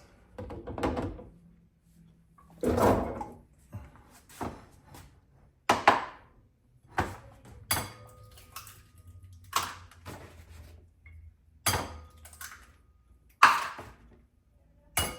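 Eggs being cracked against the rim of a bowl: a series of about ten sharp taps spread over the second half, several leaving a brief ring from the bowl. Rustling handling noises come before them near the start.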